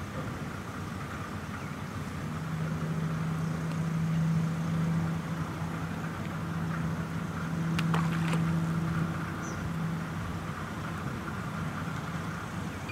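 Steady low hum of an engine that comes in about two seconds in, swells and eases twice, and fades near the end, with a single sharp click about eight seconds in.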